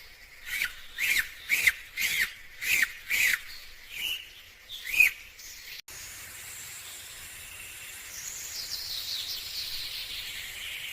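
Bird chirping: a run of short, bright chirps, about two a second, then after an abrupt cut a faint steady hiss with a faint falling sweep.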